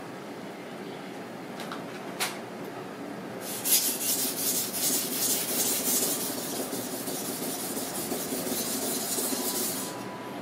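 A steel knife blade being stroked back and forth on a wet whetstone, a gritty repeated scraping rasp. It is quieter at first, with a single knock about two seconds in, and grows louder and brighter from about three and a half seconds in.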